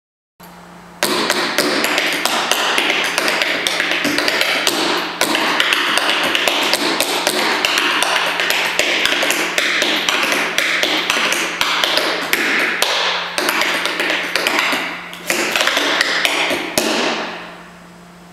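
Tap shoes striking a portable wooden tap dance floor in a fast, continuous run of steps with a few brief pauses, stopping about a second before the end. The board is built with a space beneath it so that it sounds crisp and resonant.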